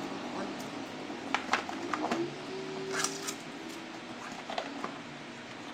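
Scattered clicks and crackles of a cardboard camera box and its plastic seal being handled and peeled open, with a brief faint squeak in the middle.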